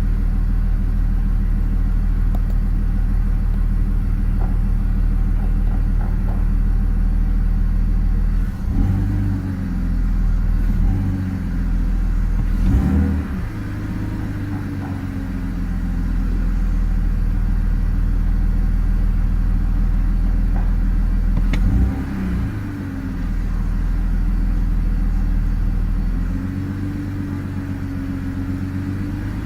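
BMW E46 330i's M54B30 straight-six idling roughly after a cold start: a steady low idle for the first several seconds, then the engine speed swinging up and down a few times. Two brief sharp clicks stand out, about halfway and two-thirds of the way through.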